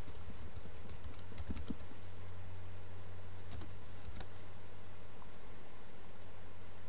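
Typing on a computer keyboard: a quick run of keystrokes in the first two seconds, then two more keystrokes around the middle, over a steady low hum.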